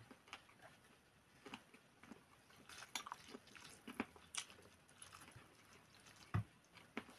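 Faint eating sounds: chewing and small wet mouth clicks, with light taps as instant noodles are stirred and lifted from their bowl with chopsticks. A single soft low thump about six seconds in.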